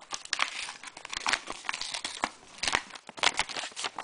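Paper and cardboard packaging being handled, crinkling and rustling with many irregular sharp crackles.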